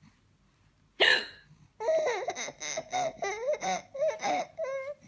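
A woman hiccups once, sharply, about a second in. Then a baby laughs at it in a string of short, high-pitched bursts, about three a second.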